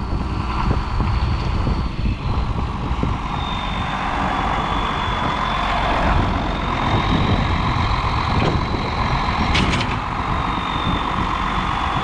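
John Deere 7610 tractor's six-cylinder turbo diesel engine running steadily, with a thin high whine held over the engine noise.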